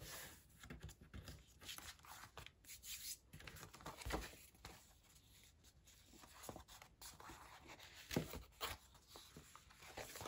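Faint rustling of a sheet of designer paper being pressed flat and handled by hand, with a few soft taps.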